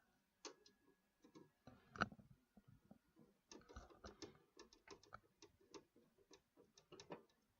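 Faint, scattered clicks and light taps of hands handling computer parts in a PC case, with one sharper click about two seconds in.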